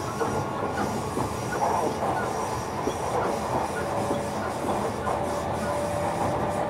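JR Kyushu 305 series electric train running, heard from inside the motor car: a steady noise of wheels on rail. About halfway through, a faint whine sets in and slowly rises in pitch.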